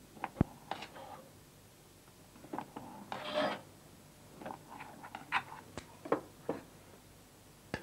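Tableware at a meal: a knife or server cutting and lifting a tart from its dish, with scattered clicks and knocks of utensils on plates and dishes and a longer scrape about three seconds in.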